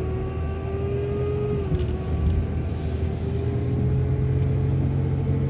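Transit bus engine and drivetrain running under way, heard from inside the bus: a low steady hum under a whine that slowly rises in pitch, dips briefly about a second and a half in, then climbs again as the bus picks up speed.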